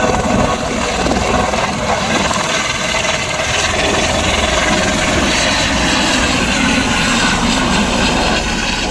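Airbus H130 helicopter hovering low just after lift-off and moving off: a steady, loud turbine and rotor noise.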